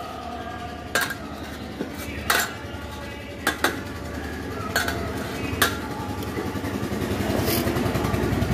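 Metal clutch plates clinking against each other and against a steel bowl of engine oil as they are lifted out and stacked onto a motorcycle clutch hub. There are about seven sharp, irregularly spaced clinks. A low engine rumble grows in the background near the end.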